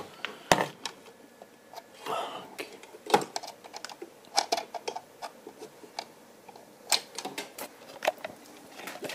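Scattered light clicks and knocks of handling as a mains plug is pushed into a wall-mounted power strip socket, with a sharper knock about half a second in and a brief rustle about two seconds in.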